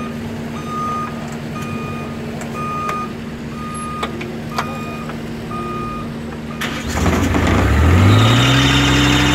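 Mini road roller's engine idling while its reversing alarm beeps about once a second. About seven seconds in, the engine revs up and holds at a higher, louder speed.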